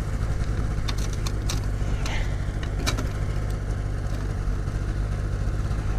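An engine idling steadily underneath, with a few sharp metallic clicks as a large Bridger Brawn #5 trap is handled, its pan and trigger being worked to set it.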